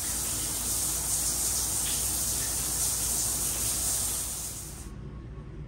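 Shower running, a steady hiss of spraying water, cut off suddenly near the end.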